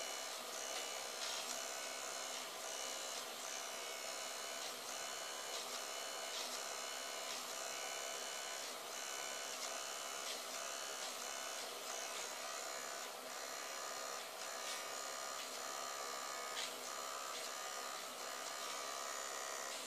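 Small battery-powered electric eraser running with a steady motor whine, its spinning rubber tip worked across airbrushed card to lift paint, with small irregular changes in the sound as the tip moves and presses.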